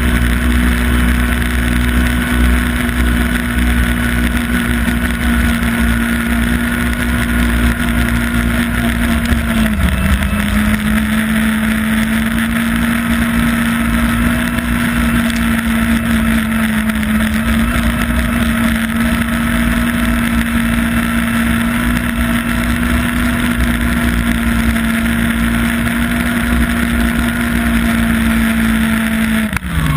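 Yamaha Apex snowmobile's four-stroke four-cylinder engine running at steady cruising revs on the trail. The revs ease off briefly about ten seconds in, then drop sharply right at the end as the throttle is let off.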